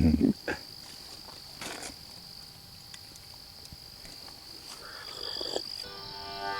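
Night chorus of crickets: a steady high-pitched trill under scattered faint clicks. Near the end, background music with a harmonica-like tone comes in.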